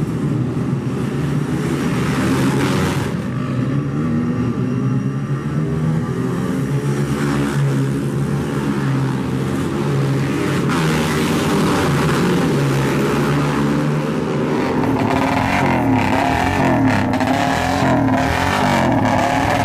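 A pack of air-cooled single-cylinder pit bikes with 140–160 cc engines revving hard as they pull away from a race start and run past. About three-quarters of the way through, this gives way to a single motorcycle engine being revved up and down repeatedly.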